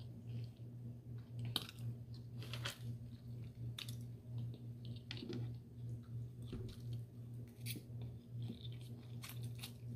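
Close-miked chewing of food, with scattered short crunches and wet mouth clicks over a steady low hum.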